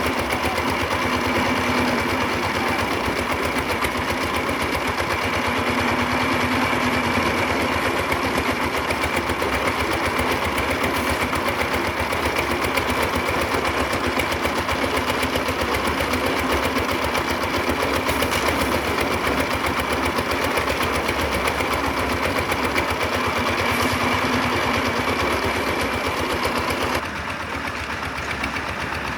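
A small engine running steadily with a rapid chattering rhythm. Its sound shifts and drops a little near the end.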